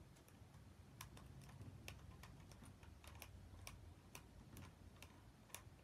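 Faint, irregular light clicks, about two a second, of a small screwdriver working a screw loose.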